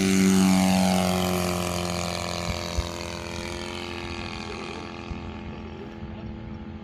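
Saito FG-57T twin-cylinder four-stroke petrol engine of a model RF-4 Fournier motorglider running at full throttle on its takeoff. It is loudest as the plane passes about half a second in, its pitch drops as it goes by, and it then fades as the plane climbs away.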